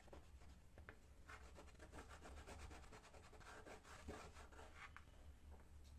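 Faint rubbing and scratching of fingers pressing and smoothing fabric against a glued cardboard wall.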